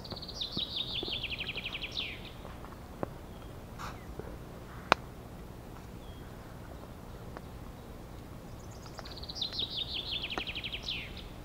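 A songbird sings a short, rapid run of notes that fall in pitch, twice, about nine seconds apart. A single sharp crack about five seconds in is the loudest sound, with a few fainter ticks around it.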